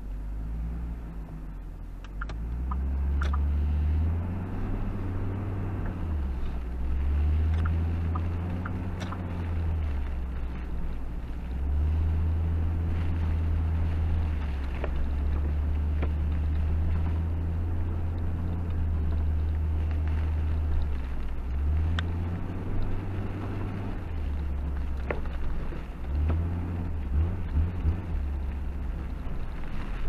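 Car driving on a snowy road: a steady low engine and road drone that shifts up and down in pitch as the speed changes, over a constant tyre hiss, with a few faint ticks.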